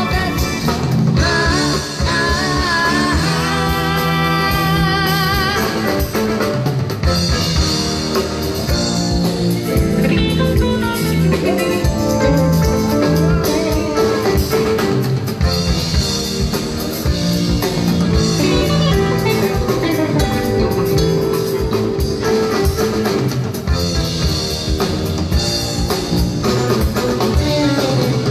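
A rock band playing live: guitar lines over a drum kit, with some singing.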